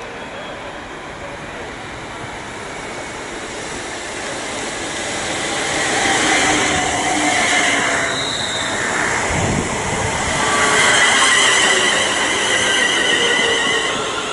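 Electric passenger train running into the platform, growing louder from a few seconds in, with high squealing tones in the second half.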